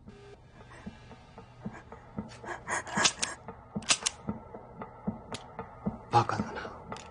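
Scattered sharp clicks and light knocks from a toy pistol being handled and grabbed, over faint breathing and quiet, low background music.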